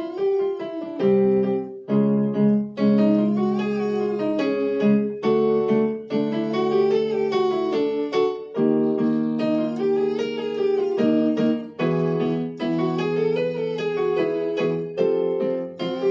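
Piano playing a vocal warm-up pattern: a chord struck about every three seconds, with a short scale running up and back down above it each time, the accompaniment for an 'ng' humming exercise.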